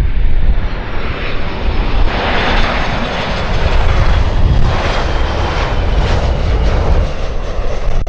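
Boeing 737-800's CFM56-7B turbofan engines passing low overhead on final approach with the landing gear down: a loud, continuous jet roar that swells about two seconds in, with a faint high whine over a deep rumble.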